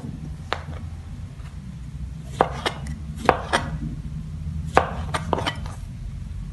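Kitchen knife slicing white button mushrooms on a plastic cutting board: about eight short taps of the blade against the board, irregularly spaced and some in quick pairs.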